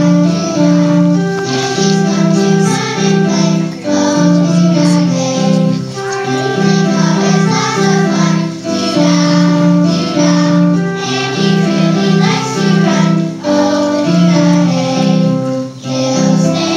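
A group of young children singing a song over accompanying music, which carries a repeating pattern of low held notes.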